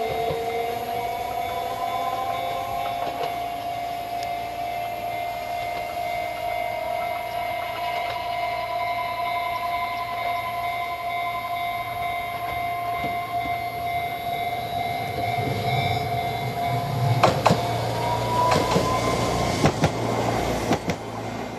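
Chikuho Electric Railway tram with a steady electric whine of several high tones. In the last few seconds the wheels clack sharply over rail joints several times as the tram passes close, and one tone rises briefly.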